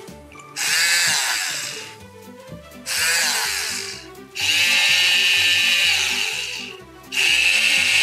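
High-pitched whirring of a toy dentist's drill, in four bursts that each start abruptly and tail off, over light background music.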